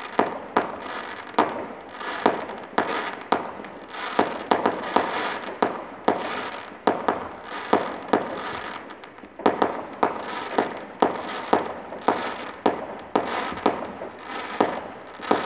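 Fireworks firing in a rapid volley: sharp bangs about twice a second, one after another, with crackling between them.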